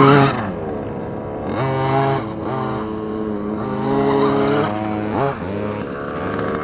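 Redcat Rampage MT V3 RC monster truck's 30cc two-stroke gas engine revving up and dropping back three times as the truck accelerates and brakes hard on dirt.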